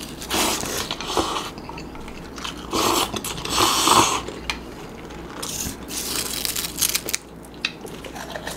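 Lay's potato chips being bitten and crunched in the mouth, close up, in several crunchy bursts with quieter chewing between.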